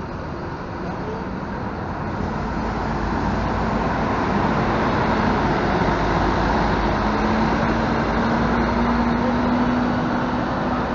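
An intercity coach's engine running as the coach drives slowly past at close range, over a steady wash of street traffic. The sound grows louder over the first few seconds, then holds steady with a low hum.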